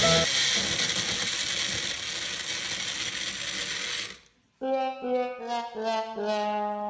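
A steady, dense hissing or rattling noise for about four seconds, cut off by a brief silence, then a short tune of about six stepped pitched notes.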